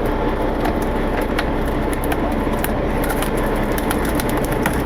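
Boat engine running steadily, with scattered small clicks and knocks over it.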